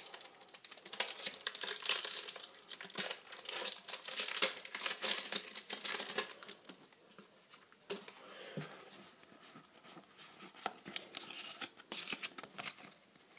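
Pokémon trading card booster pack wrapper being torn open and crinkled: a quick run of crackles and rips that thins out about seven seconds in to softer, scattered crinkles.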